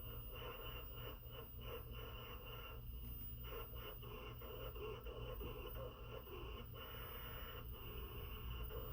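Faint high-pitched whine and hiss from an AC servo motor on a 220 V drive as it holds its commanded position while torque is applied to its shaft. The sound is the motor coils being switched rapidly by the servo drive to keep that position.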